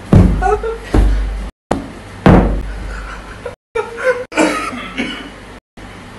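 Three loud whacks, the first right at the start, the next about a second later and the last about a second after that, as a brown hand-held object is brought down on a bent-over man's head and back. Laughter and shouts come between and after the blows.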